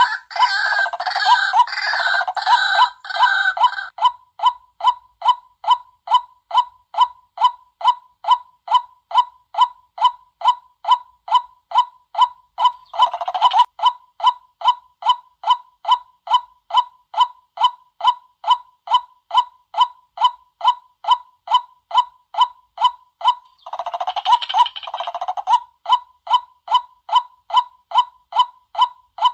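White-breasted waterhen calling: a monotonous 'kwak' repeated about twice a second, broken by bursts of harsher, denser chattering at the start, briefly around the middle and again a few seconds before the end.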